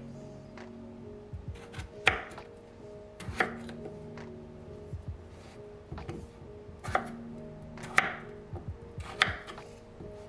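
Kitchen knife cutting raw potatoes into wedges on a wooden chopping board: several sharp knocks of the blade meeting the board at uneven intervals, with the softer sound of the blade going through the potato. Soft background music with sustained notes plays underneath.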